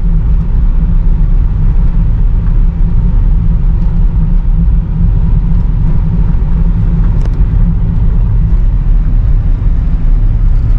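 Steady low rumble of a van's engine and road noise, heard from inside the cabin while driving.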